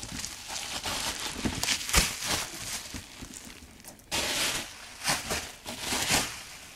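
Cardboard box packaging being handled: irregular rustling and scraping, with a sharp knock about two seconds in and louder rustles from about four seconds on.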